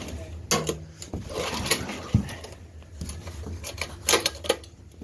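Tecumseh 5 hp pull-start mower engine being cranked on its recoil starter, a run of irregular knocks and clatters without the engine catching.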